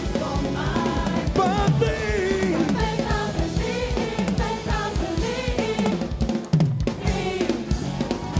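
Live gospel band music driven by a full drum kit, with a lead line sliding up and down in pitch over the beat. About six seconds in the band briefly drops out, then a hit brings it back in.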